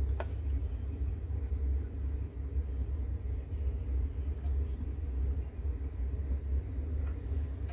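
A steady low rumble throughout, with a few faint light clicks of chopsticks against a stainless steel bowl and plate as food is pushed across.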